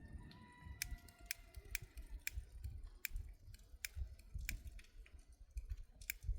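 A series of sharp, irregular clicks or taps, roughly two a second, over a low rumble.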